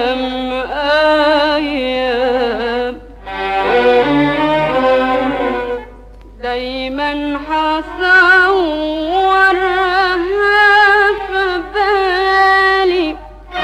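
Arabic-style dance music: a melody of long held, wavering notes on bowed strings, in phrases that break off briefly about three and six seconds in.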